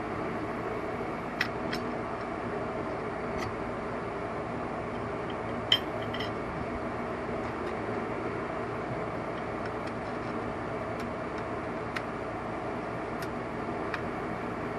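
Steady background hum with a few light clicks and metal clinks of small parts being handled, the loudest about six seconds in.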